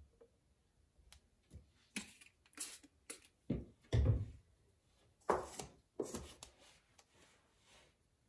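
Handling sounds of clay hand-building work on a table: a quick run of knocks, taps and short scrapes, with a heavier thump about four seconds in, trailing off into lighter taps.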